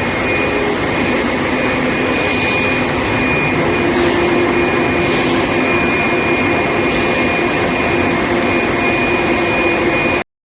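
Induction heat-treatment line for threaded steel bar running: a loud, steady industrial din with a high steady whine and lower hum tones, and faint hissing swells every couple of seconds. It cuts off suddenly near the end.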